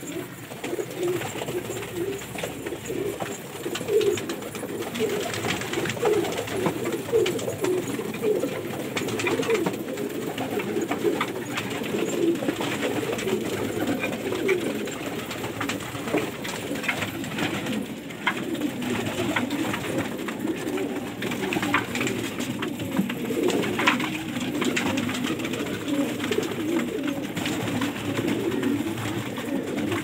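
A flock of domestic Gola pigeons cooing, many birds' coos overlapping into a continuous low burbling, with a few light clicks mixed in.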